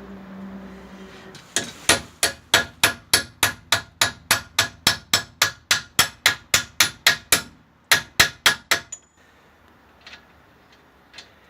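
Hammer striking metal in quick succession: about two dozen ringing blows at roughly four a second, a short pause, then four more.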